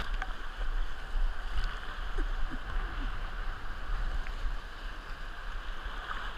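Fast river current rushing and gurgling around a whitewater kayak, with a few light splashes of the paddle dipping in and a steady low rumble underneath.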